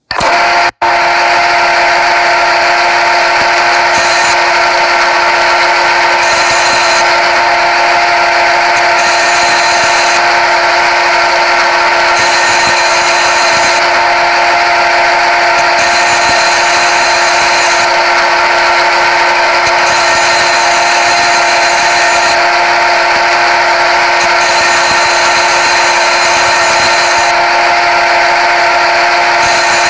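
Synthesised CNC lathe machine sound from a turning-simulator app, with the spindle running at 1000 rpm after the program start: a loud, steady whine made of several fixed tones that starts suddenly and drops out briefly under a second in. A higher hiss switches on and off every second or two as the simulated tool moves.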